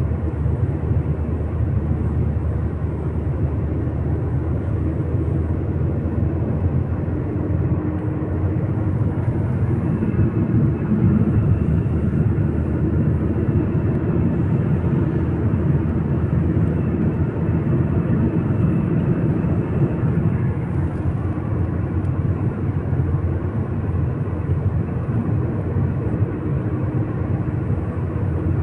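Steady low rumble of a moving vehicle: road and engine noise holding at an even level.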